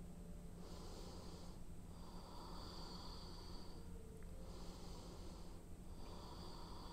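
A person breathing slowly and deeply through the nose, faint and hissing: about two full breaths, each a shorter breath followed by a longer one, one to two seconds apiece. A steady low hum runs underneath.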